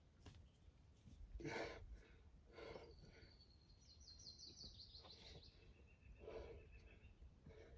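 Faint outdoor quiet in which a bird sings a rapid trill of short high notes about four seconds in, with a few thin whistled notes around it. Several short noisy puffs, like breaths, come and go.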